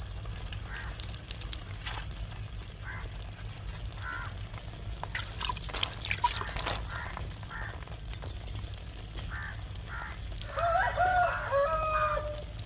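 Water pouring and splashing in scattered short strokes as shelled crabs are rinsed clean by hand. A chicken calls for a couple of seconds near the end.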